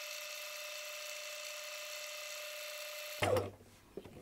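Bernina 1008 sewing machine running at a steady speed, sewing a decorative stitch through denim with an even motor whine. The whine cuts off suddenly about three seconds in, followed by a short thump.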